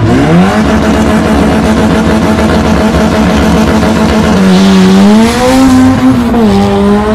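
Import drag car engine at full throttle off the start line. Its note climbs fast and holds high and steady for about four seconds, then drops and climbs again at gear changes about four and a half and six and a half seconds in.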